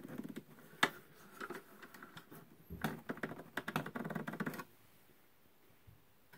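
Irregular light clicks, taps and short rattles of a screwdriver and fingers working a wire lead off a terminal screw on a record player's motor drive assembly. The sound cuts off suddenly a little over four seconds in.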